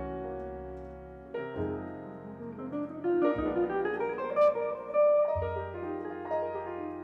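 Jazz trio of piano, semi-hollow electric guitar and bass playing a slow tune: long low bass notes under piano and guitar, with a run of notes climbing in pitch about halfway through.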